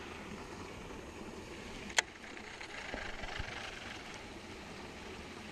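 Steady rush of a small creek inflow spilling over rocks into a lake, with one sharp click about two seconds in.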